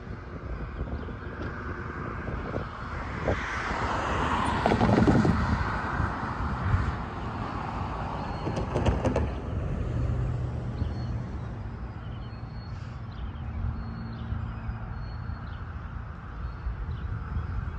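Road traffic at a grade crossing: a car passes about four to six seconds in, swelling and falling in pitch as it goes by, over steady outdoor noise, with a faint steady hum later on.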